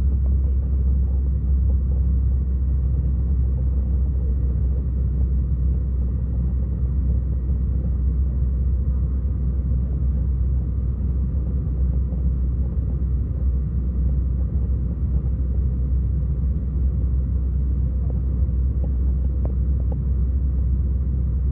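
Airbus A321 cabin noise on descent, heard at a window seat over the wing: a steady low rumble of engine and airflow, with a faint steady whine above it.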